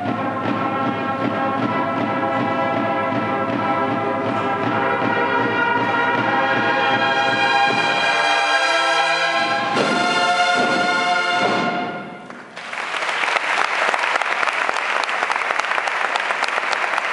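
A brass and drum band playing, its last notes ending about twelve seconds in, followed at once by loud audience applause.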